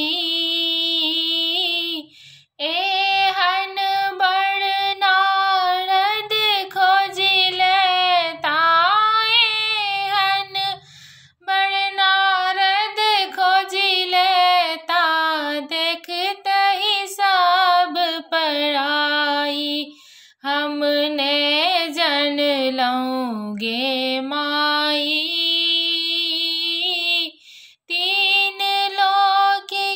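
A woman singing a Maithili Maheshvani, a devotional song to Shiva, solo and unaccompanied, in long drawn-out melodic phrases. The voice breaks off briefly about every nine seconds.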